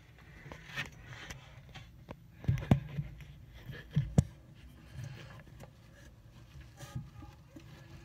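Handling noise of a phone pressed against fabric: rustling and scraping, with a few sharp knocks, the loudest two pairs about two and a half and four seconds in.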